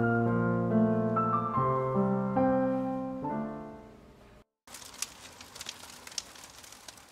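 Background piano music playing a slow melody, fading away about four seconds in and cutting off. After a short gap comes faint, irregular crackling made of many small ticks.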